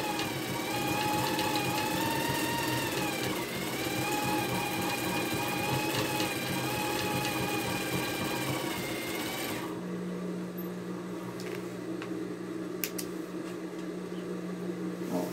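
Sewing machine stitching a seam around the edge of a quilted fabric piece, its motor whine wavering slightly with speed, then stopping abruptly about ten seconds in. A steady low hum and a few light clicks remain.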